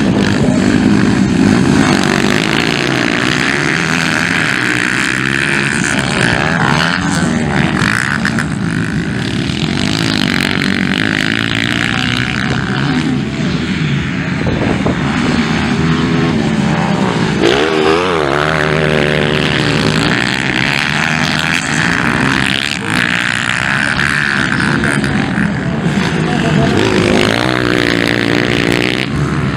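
Several motocross dirt bikes racing, their engines revving up and falling back again and again as the riders open and close the throttle and shift gears, with the sound of bikes overlapping.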